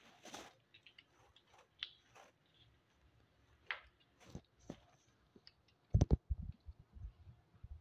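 Scattered light clicks and rustles of pet hedgehogs moving about on paper flyers in a plastic basket, with a quick cluster of low knocks about six seconds in.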